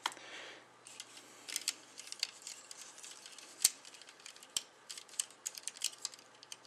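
Plastic parts of a snap-fit Gundam model kit clicking and tapping as an armor piece is handled and pressed onto the figure: small irregular clicks, one sharper click about three and a half seconds in.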